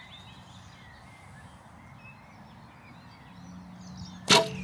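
Quiet open-field background with birds calling, then about four seconds in one sharp, loud snap as an arrow is shot from a recurve bow.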